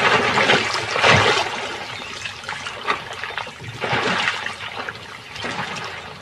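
Muddy water splashing and sloshing in surges as crocodiles thrash and spin over a carcass in a shallow pool crowded with hippos. The biggest surge comes in the first second and a half, with smaller ones about four and five and a half seconds in.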